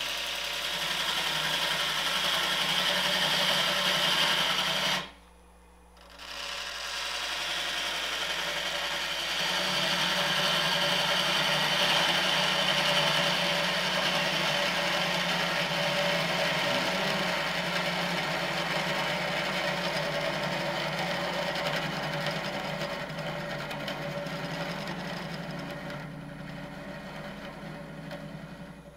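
Turning tool cutting across the end grain of a branch blank spinning on a wood lathe, squaring off the bottom: a steady scraping hiss of the cut over the lathe's running hum. It stops for about a second about five seconds in, then resumes and fades near the end as the tool comes off the wood.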